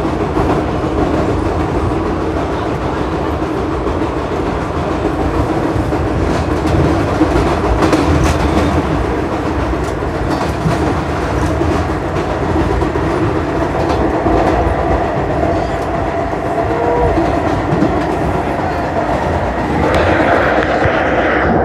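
Vintage New York City subway train running along the track, a steady rumble of motors and wheels with scattered clicks from the rails; it grows louder about twenty seconds in.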